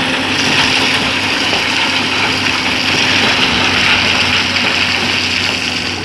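Excavator's engine droning steadily under a loud, steady rushing hiss that swells about half a second in.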